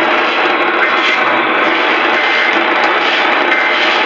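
Loud, steady hiss of radio static over a narrow-band radio channel, which cuts off suddenly near the end.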